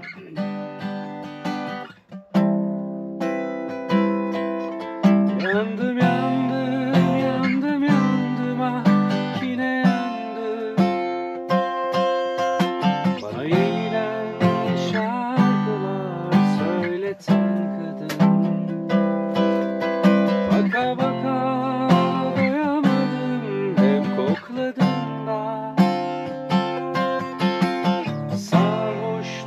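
Acoustic guitar played continuously, a melody of plucked notes over strummed chords.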